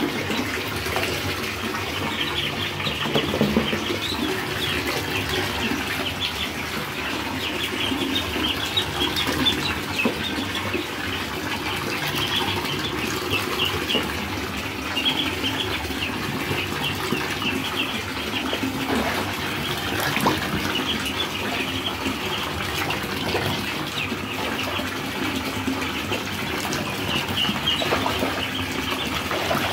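A group of week-old ducklings peeping constantly and splashing as they swim in shallow bathwater, over the steady sound of a tap running into the tub.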